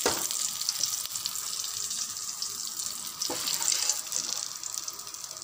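Hot cooking oil sizzling and crackling in a steel wok as batter-coated susiyam fritters fry and are scooped out with a slotted metal spoon. There are two short knocks, one at the start and one about three seconds in, and the sizzle dies down toward the end.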